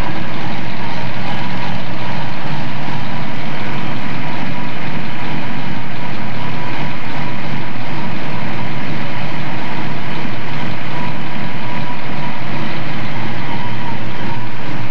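The 1970 Boss 302 Mustang's 302 V8 running steadily, heard loud with the hood open, engine and exhaust noise even throughout.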